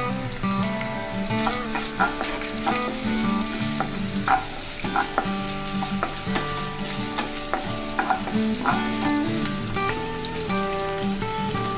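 Sliced onions and carrots sizzling as they are stir-fried in a nonstick pan, with a wooden spatula scraping and knocking against the pan every second or so. Held tones of background music run underneath.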